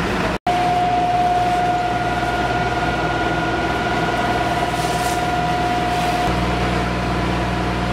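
Steady engine drone with a held whine, typical of a fire engine's engine and pump running to supply the hoses. The sound cuts out for an instant about half a second in, and its low hum shifts near the end.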